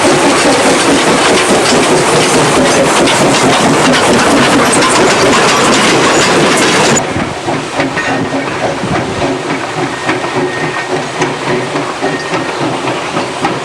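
Laona & Northern #4, a 1918 Vulcan 2-6-2 steam locomotive, working with an excursion train: a loud steady hiss of steam with the clatter of wheels on rail. About seven seconds in it drops suddenly to a quieter running sound.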